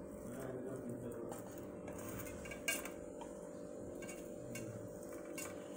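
Faint taps and clinks on a steel plate as mashed potato filling is pressed and spread onto bread, with one sharper clink about two and a half seconds in, over a steady low hum.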